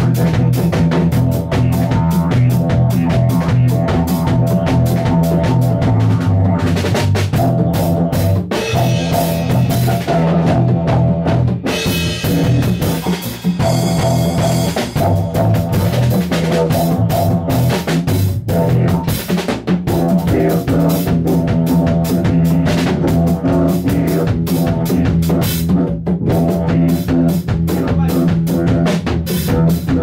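Rock-style music: a drum kit beating steadily and busily over sustained low instrumental tones.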